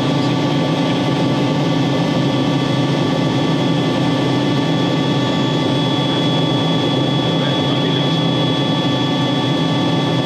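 Robinson R66 helicopter's Rolls-Royce RR300 turboshaft engine running steadily on the ground after start-up, a constant high whine over a low drone.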